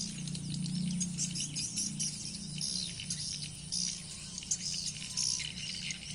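Swiftlet lure-call recording played through speakers: rapid, repeated high twittering chirps, with a steady low hum underneath.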